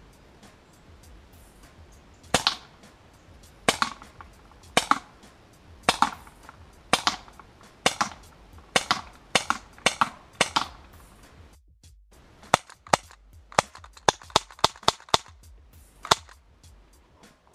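Cybergun/KWC M&P 40 CO2 airsoft pistol firing sharp, snappy shots. At first it fires about one shot a second, then after a short pause a quicker string of shots, ending with one more shot.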